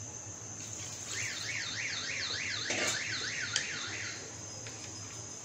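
A high warbling tone, sweeping up and down about four times a second, starts about a second in and lasts about three seconds, with a single light clink near its middle.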